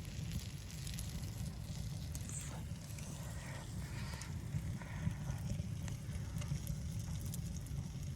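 Steady low wind rumble on the microphone, with scattered small crackles and clicks over it.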